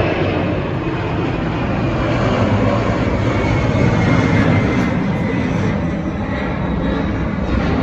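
Boeing 747 jet engines running at takeoff power: a loud, steady roar with a high whine that slowly falls in pitch.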